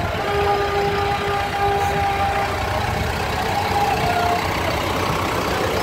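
Diesel tractor engines running at a slow crawl as a tractor and trailers pass close by, a steady low rumble. A steady pitched tone is held for about two seconds near the start.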